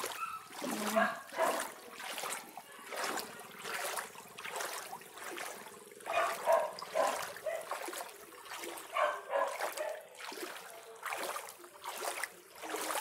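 Someone wading through flood water, the legs sloshing and splashing at each step. A few short voice-like sounds come in the background about a second in, around the middle and again a little later.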